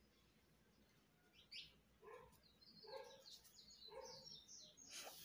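Faint dog barking in the background, one short bark about once a second from about two seconds in, with birds chirping.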